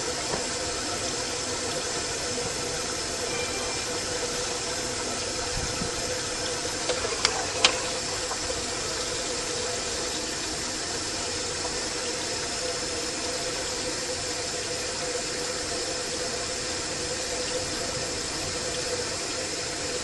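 Steady rush of water draining through the plumbing, with a faint hum and a couple of short clicks about seven seconds in.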